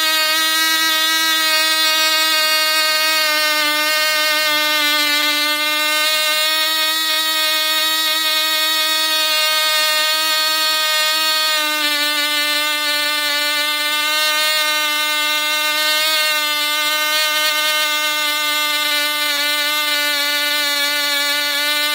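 Cox Tee Dee .049 single-cylinder two-stroke glow engine running flat out on 25% nitro, swinging a 5x3 APC propeller at about 19,500 rpm. It makes a steady, high-pitched scream. Its pitch dips slightly about halfway through and then holds.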